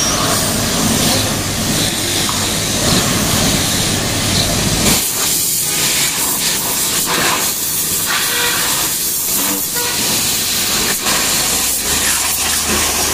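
A high-pressure washer jet spraying water onto a motorcycle: a loud, steady hiss. A low hum runs underneath for about the first five seconds, then drops away, leaving mostly the hiss of the spray.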